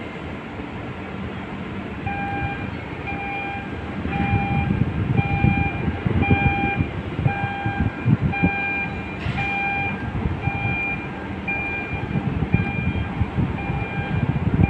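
Electronic warning beeper sounding short, evenly spaced beeps, about one a second, starting about two seconds in. Under it is a loud, uneven low rumble that grows about four seconds in.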